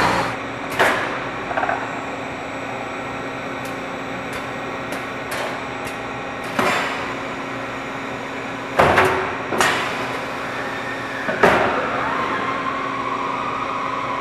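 Automated sheet-metal production machinery running with a steady hum. Five sharp metallic clanks come at irregular intervals, with a few light clicks between them, and a steady whine sets in near the end.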